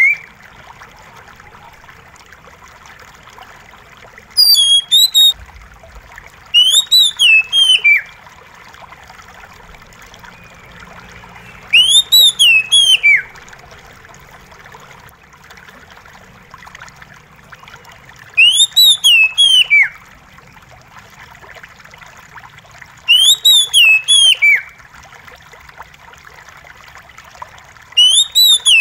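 Oriental magpie-robin singing six short phrases of quick, falling notes, a few seconds apart, over a steady trickle of running water.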